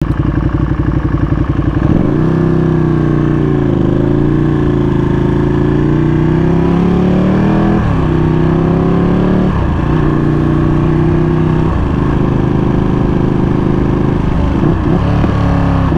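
Ducati Panigale V2's 955 cc L-twin engine running through an Akrapovič full titanium exhaust while riding: a lumpy, even pulsing at low revs, then the pitch climbs, and it drops sharply and picks up again several times as the throttle and gears change.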